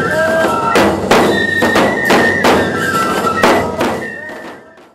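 Nebuta festival hayashi music: a high bamboo flute melody with repeated drum and cymbal strokes, fading out over the last second.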